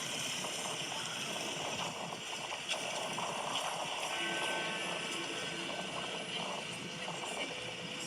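Clock tower bells chiming: a run of steady pitched tones comes in about four seconds in, over a constant background of outdoor noise.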